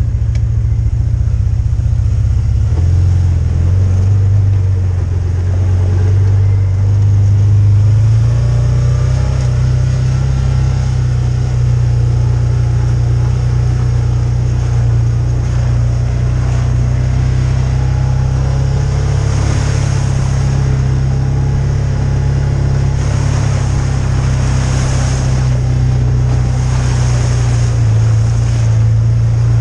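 Side-by-side UTV engine running as it drives, a steady low drone whose pitch steps up twice in the first eight seconds. In the second half several swells of hiss rise over it.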